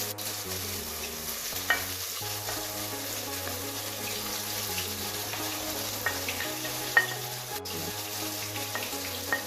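Chopped onions sizzling steadily in hot oil in a pot, with two sharp clinks against the pot, about two seconds in and near seven seconds.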